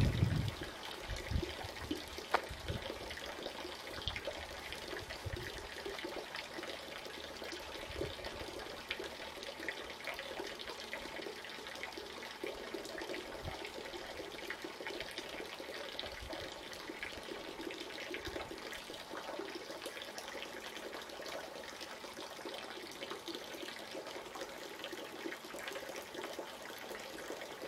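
Steady rushing outdoor ambience with a water-like hiss, and a few low thumps in the first couple of seconds.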